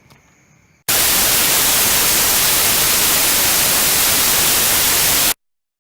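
Loud, even hiss of white-noise static that starts abruptly about a second in and cuts off sharply about four seconds later into dead silence.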